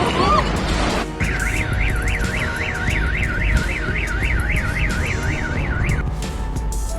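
Electronic alarm yelping in fast rising-and-falling sweeps, about four a second, for about five seconds, starting about a second in. It sounds over a steady low rumble.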